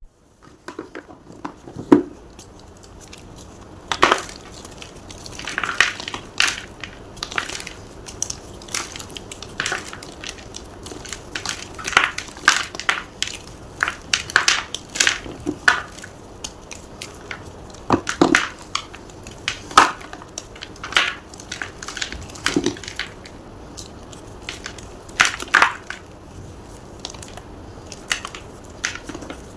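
Gym chalk being crushed: irregular sharp crunches, roughly one every second or so, with softer crumbling between them.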